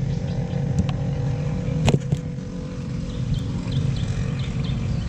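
A small engine running steadily, with one sharp knock about two seconds in.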